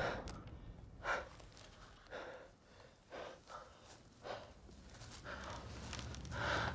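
A person breathing hard in faint, short gasps, about one breath a second, as after struggling in icy water.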